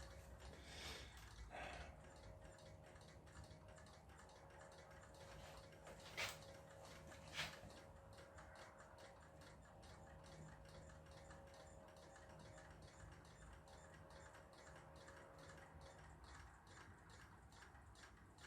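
Near silence with faint, regular ticking running steadily, and two louder single clicks about six and seven seconds in.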